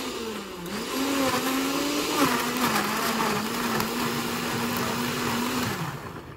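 Countertop blender motor pureeing a thick jar of charred tomatillos, serranos and garlic into chunky salsa: its pitch dips and picks up again about half a second in, then runs steadily before winding down near the end.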